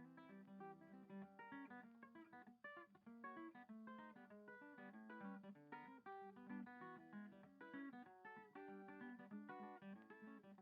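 Quiet background music: an acoustic guitar playing a steady stream of quick plucked and strummed notes.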